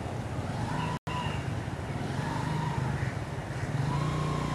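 A motor vehicle engine running steadily, a low even hum. The sound cuts out completely for an instant about a second in.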